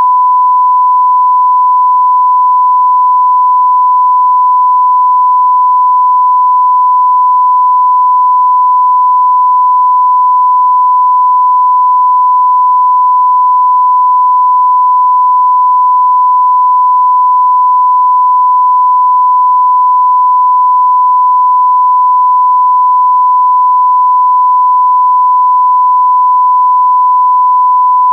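A continuous beep: a single pure tone at about 1 kHz, held at a steady pitch and level without a break. It is the standard censor bleep or test-tone sound effect.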